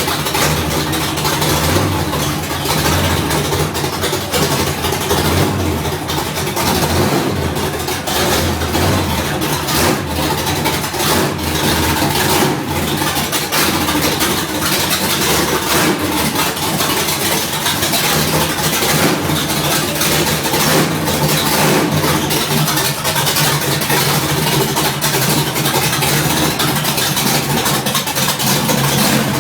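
Third-gen car engine running at a rough idle, its loudness wavering slightly.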